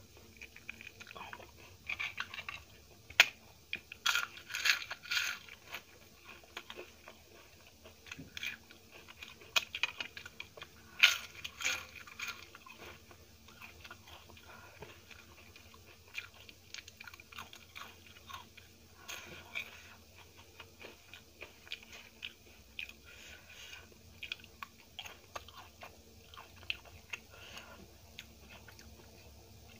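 Close-miked eating: chewing and wet mouth sounds with sharp crunchy clicks as a mouthful of rice and curry eaten by hand is chewed. The crunching is loudest in the first twelve seconds or so, then settles into softer, sparser chewing.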